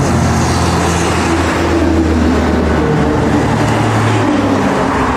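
Heavy diesel road traffic: a coach bus and trucks approaching. Their engine drone shifts pitch a few times over steady tyre and road noise.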